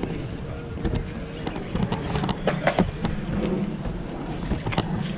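Steady outdoor background noise with a faint hum in the first second or so, broken by a handful of irregular sharp clicks.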